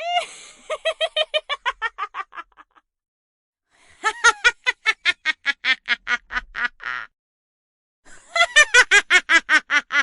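A witch's cackling laugh, three bursts of rapid high-pitched 'ha-ha-ha' pulses that fall in pitch and trail off, with short pauses between them.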